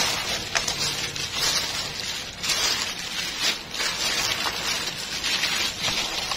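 Hand in a plastic glove mixing fish chunks with coarse salt and black tapioca in a stainless steel bowl: a wet, gritty rubbing and squishing that swells and eases unevenly as the mixture is turned.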